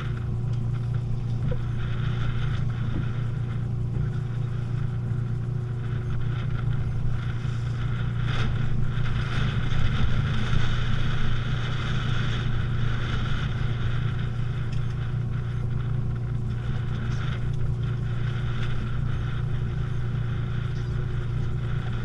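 A sailing yacht's inboard engine running steadily as it manoeuvres into a berth, with strong wind noise that swells about halfway through.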